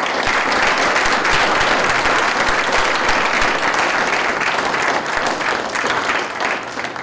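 Audience applauding: dense, steady clapping from many hands that thins out and dies away near the end.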